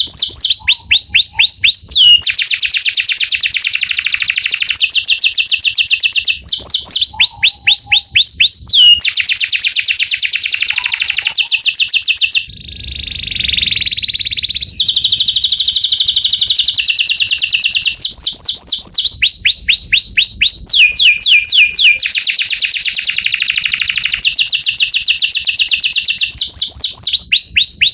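Male canary singing a loud, continuous song of fast repeated note series, rolling trills and quick falling sweeps. About halfway through there is a brief softer, lower passage.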